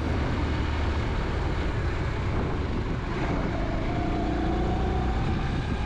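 Motorcycle riding slowly in street traffic: a steady engine rumble with road and wind noise. A faint steady whine joins about three seconds in.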